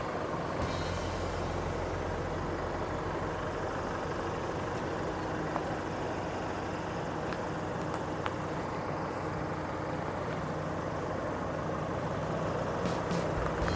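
Chevrolet Colorado ZR2 Bison pickup's engine running steadily at low revs as the truck crawls slowly up a rutted dirt trail, with a few faint clicks from the tyres and trail.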